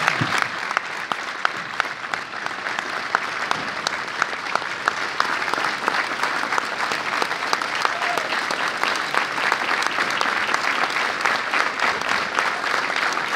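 Large audience applauding, with dense steady clapping that grows a little louder in the second half.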